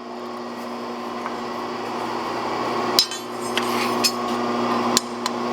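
Several sharp metallic clinks of a steel cutter tool against a power hammer's dies, the loudest about three seconds in, over a steady machine hum that grows slightly louder. The cutter does not fit: the dies are too wide.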